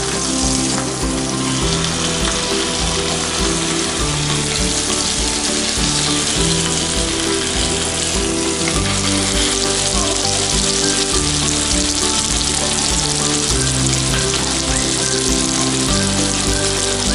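Chicken leg pieces in a yogurt-spice marinade sizzling steadily as they fry in butter and oil in a pan, with background music underneath.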